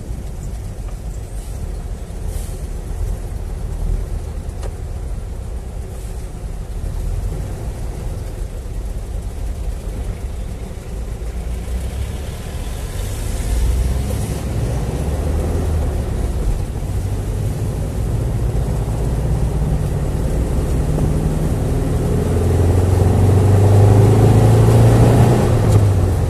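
Volkswagen Beetle's air-cooled flat-four engine running while driving in traffic, heard from inside the cabin. Near the end the accelerator is pressed harder and the engine grows louder.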